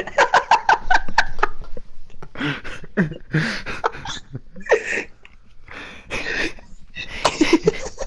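People laughing: a quick run of pitched ha-ha pulses, then breathy, wheezing bursts of laughter.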